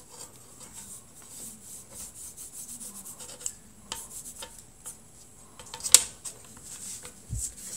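A tack cloth being wiped over sanded wooden pieces, a soft uneven rubbing, with scattered small clicks and one sharp click about six seconds in as the pieces are handled.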